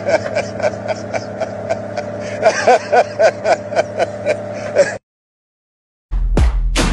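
A man laughing in a rapid run of short 'ha' bursts, about four a second, over a steady low engine hum. It cuts off suddenly about five seconds in, and loud music starts about a second later.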